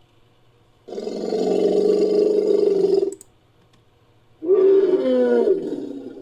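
Two roaring calls made as sound effects for an African forest elephant: a harsh call about two seconds long, then after a short gap a shorter one that falls in pitch.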